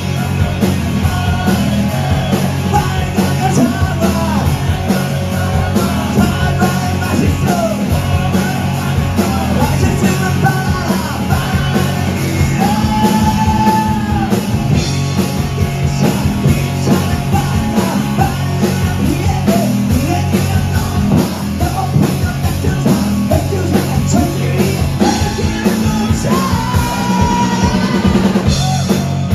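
A rock band playing live: distorted electric guitars and a drum kit at full volume, with a singer's voice over them.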